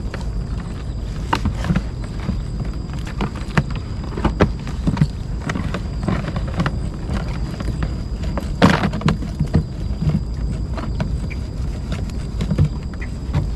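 Irregular knocks and clatter over a steady low rumble, with one louder knock about nine seconds in.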